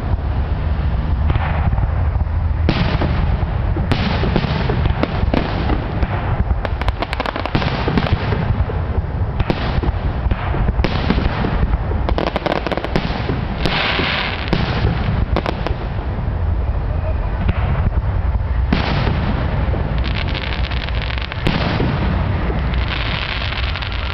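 Aerial firework shells bursting in quick succession, a near-continuous run of bangs over a rolling low rumble, with hissing stretches about fourteen seconds in and near the end: the dense barrage of a display's finale.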